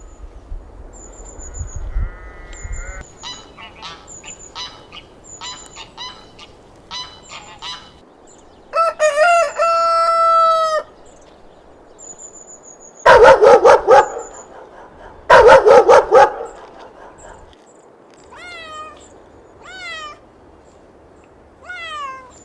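A run of farm animal calls, one after another: a duck quacking, a rooster crowing in one long call, a dog barking in two loud bursts, and a cat meowing a few times near the end, each meow falling in pitch. Faint high bird chirps repeat in the background.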